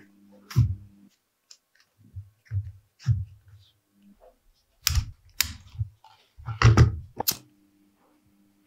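Irregular clicks, taps and knocks of leather, needles and thread being handled during hand saddle-stitching, with the loudest knocks clustered about five to seven seconds in.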